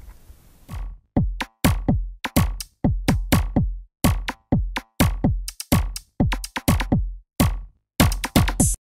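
Electronic closing music: a drum-machine beat of punchy hits that each drop in pitch. It starts about a second in and cuts off suddenly near the end.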